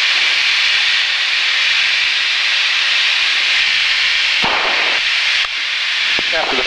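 Piper Archer's engine and propeller running steadily in flight, heard from inside the cabin as a loud, even hiss with a faint steady hum beneath it.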